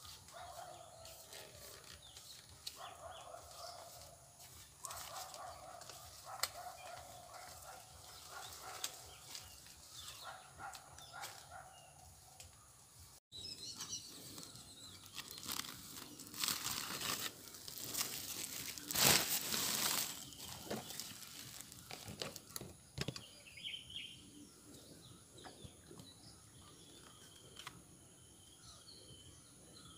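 Rustling and scraping of sacking cloth and coir rope being handled at the top of a kithul palm, where a toddy pot is tied to the cut flower stalk. It is loudest for a few seconds in the middle. Birds chirp faintly.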